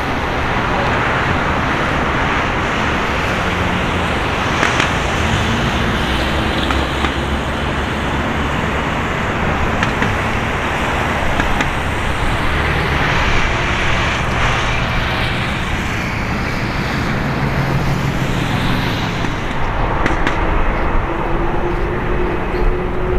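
Boeing 787-8 Dreamliner's Rolls-Royce Trent 1000 turbofans running at low thrust, a steady jet rumble and hiss. About twenty seconds in a rising whine sets in as the engines spool up for the takeoff roll.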